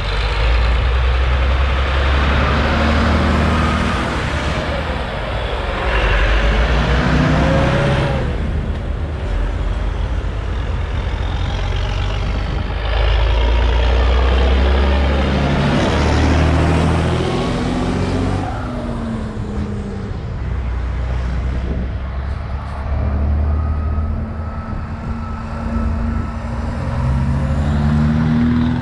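A string of tractors and a car driving past one after another at close range, each engine swelling as it comes up and falling away in pitch as it goes by. The low, heavy running of tractor engines dominates, with a lighter car engine passing near the end.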